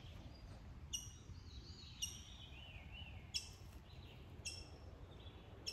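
Faint birdsong: one bird gives a short, sharp chirp about once a second, five times, while another sings a softer wavering phrase. A faint low rumble runs underneath.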